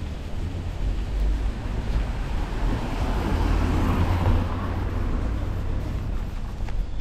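A car passing by, its engine and tyre noise swelling to a peak about four seconds in and then fading away.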